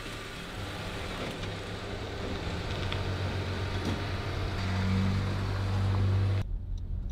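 A car engine idling, its low hum growing louder over the first six seconds. About six and a half seconds in, the sound turns abruptly muffled, leaving only the low hum.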